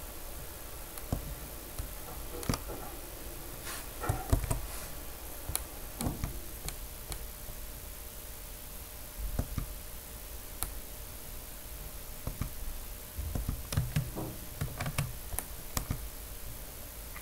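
Scattered computer mouse clicks and light knocks on a desk, some clustered into short groups, over a faint steady electrical hum.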